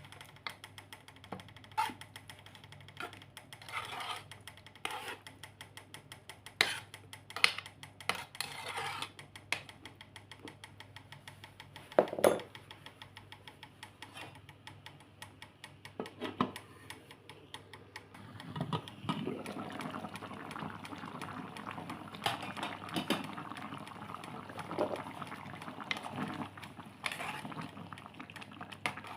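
A cooking utensil clinks, knocks and scrapes against a pot during stovetop cooking, with one louder knock near the middle. About two-thirds of the way through, a steadier noisy hiss of the dish cooking joins in.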